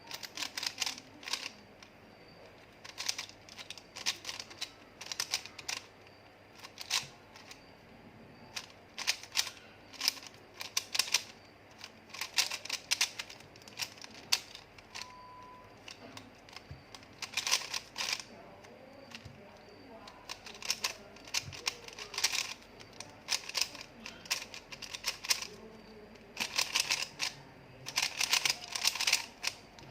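Irregular runs of sharp clicks and taps, coming in clusters with short pauses between them, with a faint high steady tone coming and going behind them and one short beep about halfway through.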